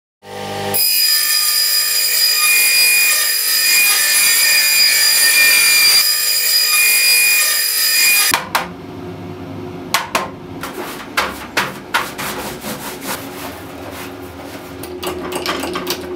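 A power tool runs with a steady high whine for about eight seconds, then stops. After that come scattered wooden knocks and clicks as thin wood veneer sheets are handled.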